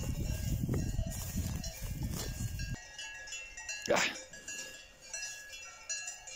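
Cowbells on grazing cows ringing on and off, several clanking tones at once. A low rumbling noise on the microphone runs through the first few seconds, and a sharp knock comes about four seconds in.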